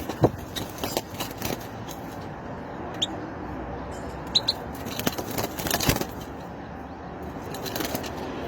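A few sharp clicks and knocks, several close together about five seconds in, with two or three short high chirps over steady background noise.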